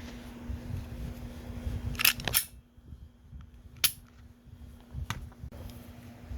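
Sharp mechanical clicks from a Glock 43X 9mm pistol being handled, about four of them spread over a few seconds, with low rustling in between.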